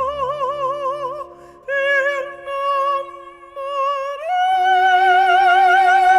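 Operatic solo singing in a high, soprano-range voice with a wide vibrato. The phrases are broken by short breaths, then the voice climbs to a higher held note about four seconds in. Steady sustained instrumental tones accompany it underneath.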